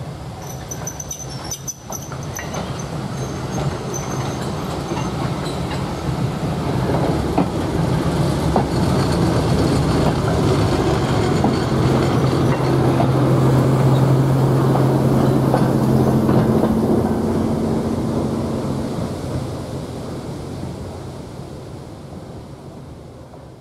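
Model BR Class 08 diesel shunter running past on the layout's track: a steady low hum with running noise that builds as it approaches, is loudest midway, and fades as it moves away.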